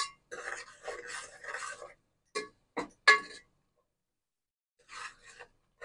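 A metal ladle stirring a thick tomato-and-spice masala in an aluminium pot: it scrapes for about a second and a half, then clinks sharply against the pot three times, with a couple of faint scrapes near the end.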